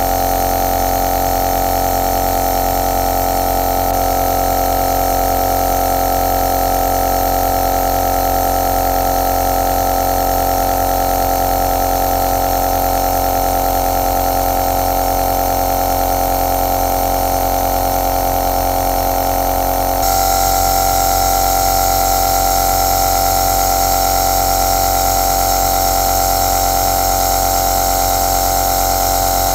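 Compressor nebulizer (aerosol machine) running steadily: a constant buzzing hum with an airy hiss. The tone shifts slightly about four seconds in, and again about two-thirds of the way through, where it turns a little louder and hissier.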